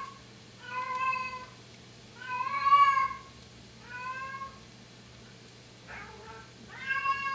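Domestic cat meowing loudly over and over: four long, drawn-out meows, the second one the loudest, with a faint short one near the end.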